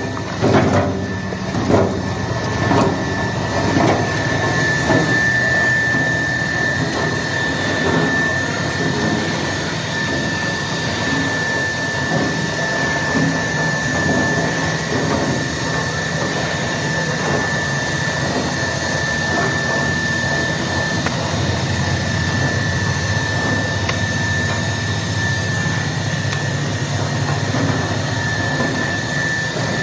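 Poultry deboning machine (bone-meat separator) running: a steady mechanical din with a thin, steady high whine over it, and a few knocks in the first couple of seconds.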